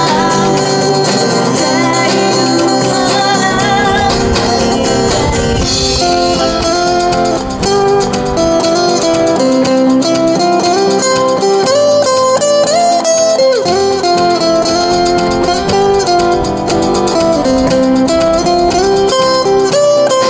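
Live acoustic band music: acoustic guitars strumming and picking, played through small amplifiers. A woman sings at the start, then the guitars carry a stepped melody line through an instrumental passage.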